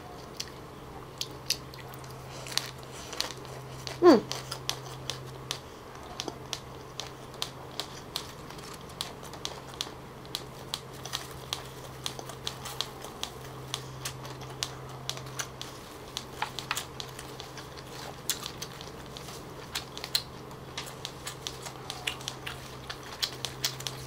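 Close-miked chewing of a mouthful of bánh căn, with many small wet mouth clicks and a jaw clicking audibly as it works. A short falling vocal sound comes from the eater about four seconds in.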